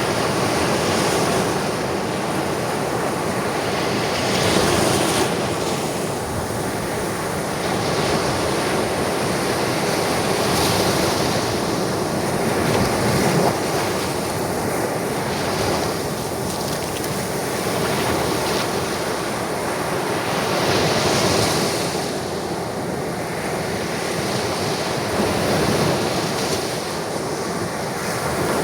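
Ocean waves breaking and washing on a shore in a steady rush, swelling and easing every few seconds, with some wind on the microphone.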